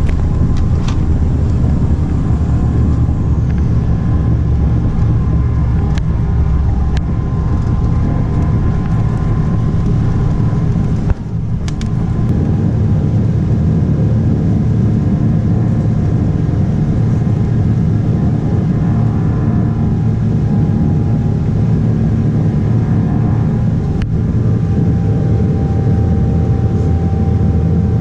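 Steady low roar of jet engines and airflow heard inside a Boeing 777-300 airliner cabin, with a brief break about eleven seconds in.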